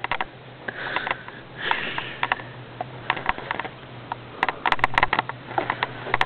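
A person sniffing, two breathy puffs, followed by a run of small sharp clicks and taps over a steady low hum.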